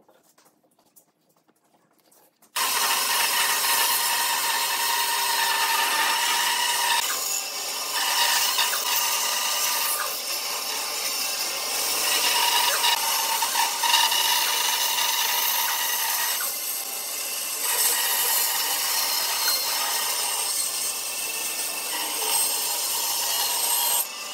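Band saw cutting through a thick block of wood: a steady sawing noise that starts suddenly about two and a half seconds in, rising and dipping a little as the blade works through the cut.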